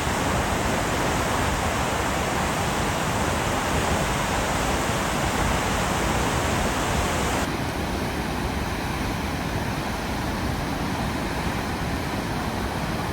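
Lower Falls of the Genesee River: a steady roar of falling water. About seven and a half seconds in it changes abruptly to a slightly quieter, duller roar.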